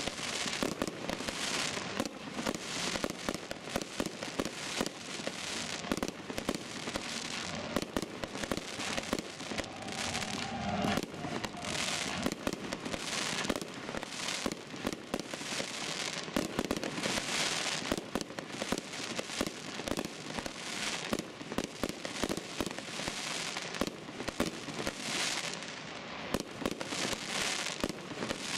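Aerial fireworks going off in quick succession, a burst about every second or so, each followed by dense crackling and popping of the stars.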